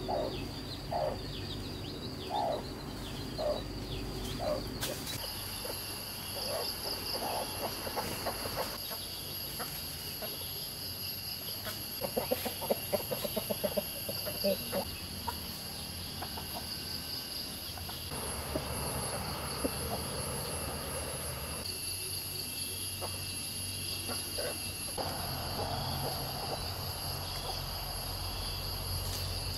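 Chickens clucking and a chick cheeping in short separate calls, with a quick run of clucks about halfway through, over a steady high-pitched hum.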